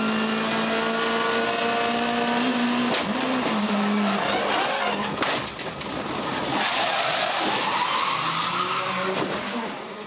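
Race car engine heard onboard, holding a steady high note, then a crash: hard impacts about three and five seconds in, followed by scraping and skidding with a tyre squeal that rises and falls.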